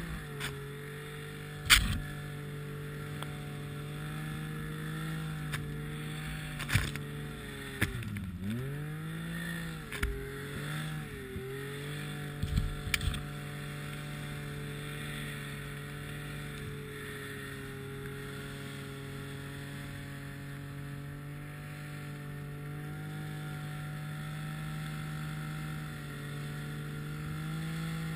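Snowmobile engine running at a steady pitch while travelling through deep powder snow, the pitch dipping and climbing back twice, about eight and about eleven seconds in. Several sharp knocks sound in the first half, the loudest about two seconds in.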